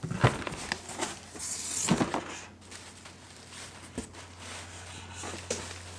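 Cardboard boxes being handled and a hand rummaging through packing inside a shipping box: a few scattered knocks and bumps of cardboard, with a short rustle of packing material about a second and a half in. A low steady hum runs underneath.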